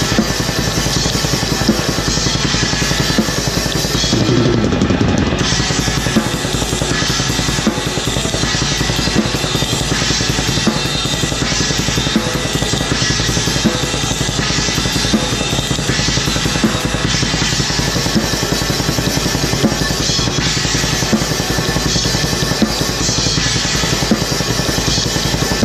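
Drum kit played fast and without a break, with bass drum, snare and cymbals in dense, rapid strokes: black metal drumming, heard close up from the drummer's seat.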